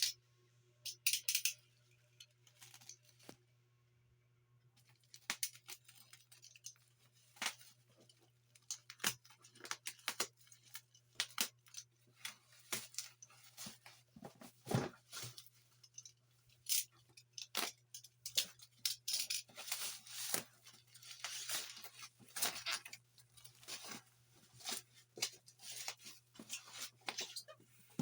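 Cardboard box and packaging being opened by hand: irregular tearing, rustling and crinkling with many small clicks and knocks. A faint steady low hum runs underneath.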